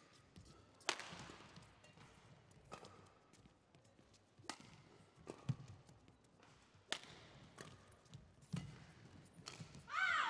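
Shuttlecock struck back and forth with badminton rackets in a rally: a sharp crack about every one to two seconds, each with a short echo, among low thuds of players' footwork. A loud, brief squeal that rises and falls comes near the end.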